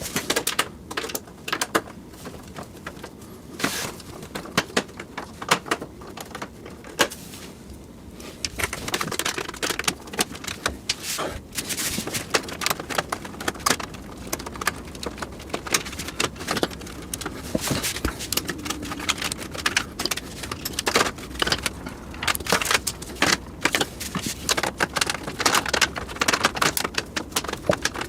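Irregular clicks, taps and rattles of hard parts being handled while working on a PC case. They are sparse at first and come almost without a break from about eight seconds in.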